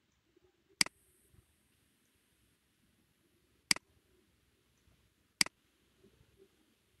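Three sharp computer mouse clicks spaced a few seconds apart, each a press followed at once by a quieter release.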